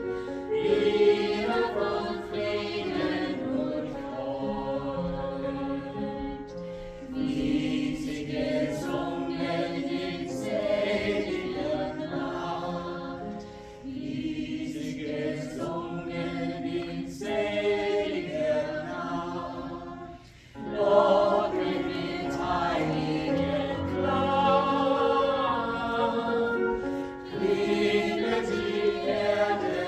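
Church choir singing, several voices in harmony moving phrase by phrase, with a short pause between phrases about twenty seconds in.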